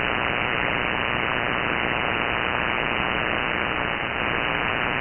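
Shortwave receiver audio on the 80-metre band in sideband mode, with no station on frequency: a steady hiss of interference noise, cut off above about 3 kHz by the receive filter. The noise is taken for power-line RFI, about S8 strong, which the operator is trying to null with diversity phase control.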